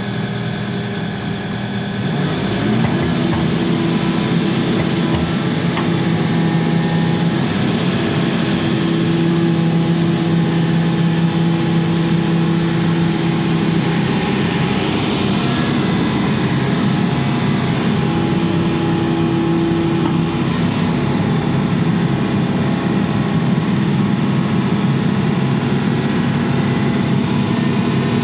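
Diesel engine of a Case CX80C mini excavator running under load, stepping up to a higher steady running level about two seconds in, with steady pitched tones that come and go.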